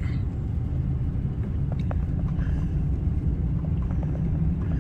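Steady low rumble of engine and tyre noise inside the cabin of a vehicle driving on a paved road.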